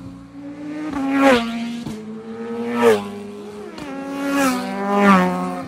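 Four sport motorcycles passing by one after another, each engine note rising as it approaches and dropping sharply as it goes past. A steady idling engine runs underneath.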